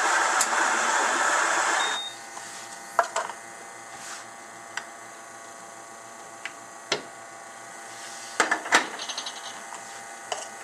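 Compak K10 doserless coffee grinder running steadily, then cutting off abruptly about two seconds in. After that come scattered light clinks and knocks of metal and crockery.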